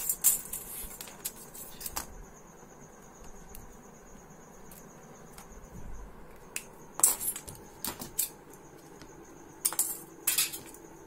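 Scissors cutting through a thin sheet-metal strip: sharp metallic snips and clinks in short clusters, loudest about seven seconds in and again near ten seconds.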